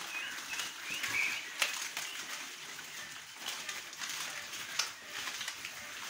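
A crowd of piglets feeding together, with short high squeaks and rustling, clicking noises, the squeaks mostly in the first second or so.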